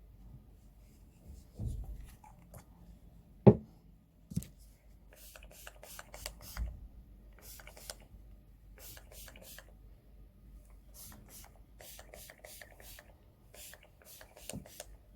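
Scissors snipping through the lace of a wig in quick runs of short cuts, with a sharp knock about three and a half seconds in.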